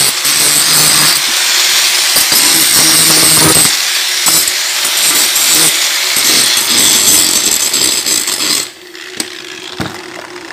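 Handheld angle grinder grinding down a weld bead on thin square steel tubing, a loud continuous grinding hiss. It stops about eight and a half seconds in.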